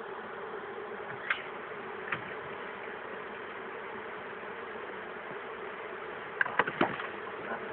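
Honeybees buzzing in a steady dense hum. A few sharp knocks come through, one or two within the first couple of seconds and a quick cluster near the end.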